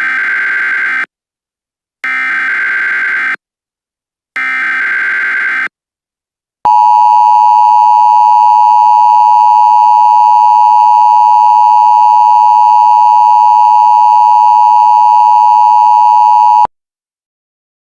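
Emergency Alert System header: three bursts of digital data tones, each just over a second long. Then comes the loud, steady two-tone EAS attention signal, held for about ten seconds before it cuts off suddenly.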